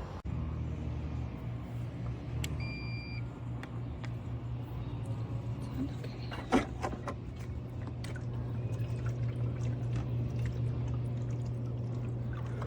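Robotic pool cleaner's pump motor running with a steady low hum and some watery sounds. A short high beep comes about two and a half seconds in, and a single knock about six and a half seconds in.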